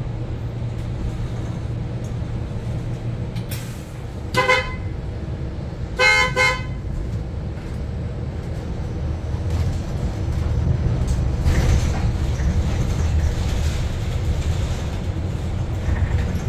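Low steady rumble inside a New Flyer XE60 battery-electric articulated bus moving through city traffic, growing somewhat louder in the second half. A vehicle horn honks once about four seconds in, then twice in quick succession about two seconds later.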